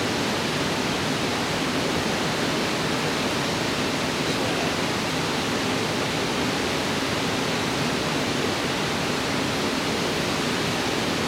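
Steady rush of flowing river water, an even hiss that does not change.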